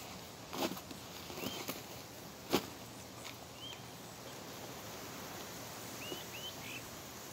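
Outdoor ambience with short bird chirps, one about a second and a half in, one near the middle and three in quick succession near the end. In the first few seconds there are several sharp knocks and rustles, the loudest about two and a half seconds in, as a loaded rucksack is lifted through a clean into a front squat.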